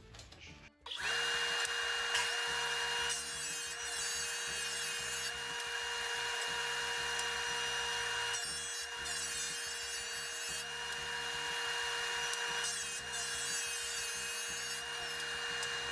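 A jointer switched on about a second in and running with a steady whine, while boards are face-jointed over its cutterhead in three passes, each pass adding a rougher, higher cutting noise.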